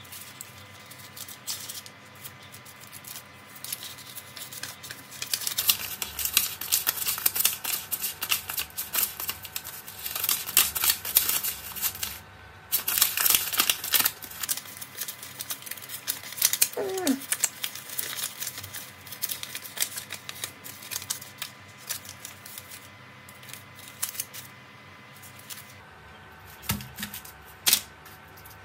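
Paper banknotes crackling and rustling as a stack is handled and flipped through by hand. The crisp crackling is densest through the middle stretch, with lighter handling sounds at the start and end.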